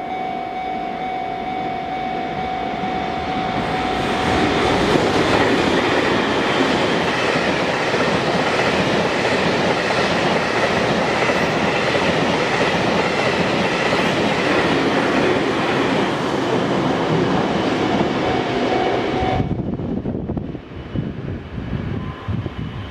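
M250 series Super Rail Cargo electric freight train passing at high speed: loud wheel and running noise with clickety-clack that builds about four seconds in and lasts about fifteen seconds, then drops off suddenly, leaving low rumbling. Over the opening seconds, and again just before the drop, a level-crossing warning bell rings a steady tone.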